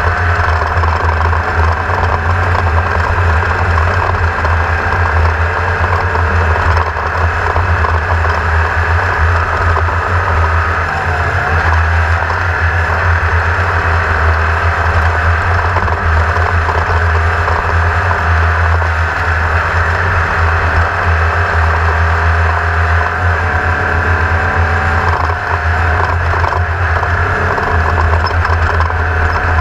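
Engine running at a steady speed, a loud constant drone with a strong low hum.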